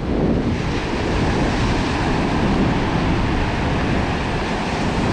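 Ocean surf washing onto the beach in a steady rush, with wind noise on the microphone.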